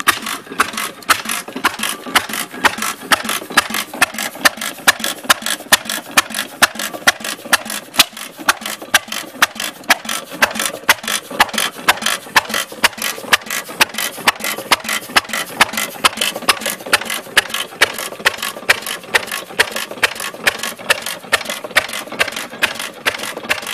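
1914 Friend stationary engine, throttle governed, running slowly at a steady speed: an even, regular beat of sharp strokes that keeps up without change.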